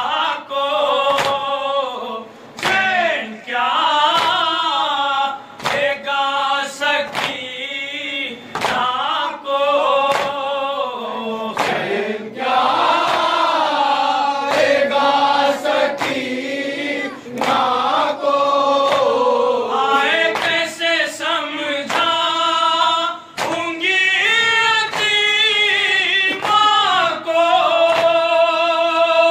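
Several men chanting a nauha, a Shia Muharram lament, in unison into a microphone, in long drawn-out sung phrases. It is kept in time by a regular beat of sharp slaps, about one or two a second, that sound like matam chest-beating.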